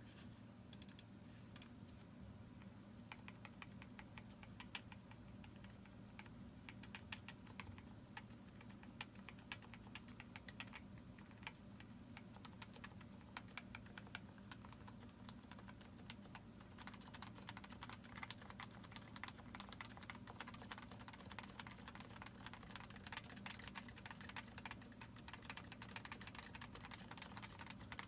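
Leopold FC660C Topre electrostatic capacitive keyboard with variable-weight switches, PBT keycaps and unlubricated sliders being typed on: a continuous run of key strokes, faster and denser from about two-thirds of the way through.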